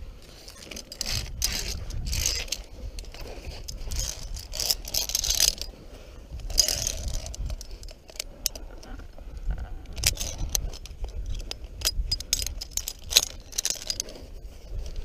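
Via ferrata lanyard carabiners jangling and clicking against the steel safety cable, with gloves and clothing scraping over rock and cable. The sharp clicks bunch up near the end.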